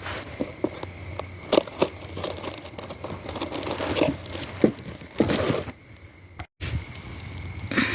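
Packaging crinkling and tearing in irregular handling bursts as s'mores ingredients are unwrapped by hand. The sound drops out briefly about six and a half seconds in.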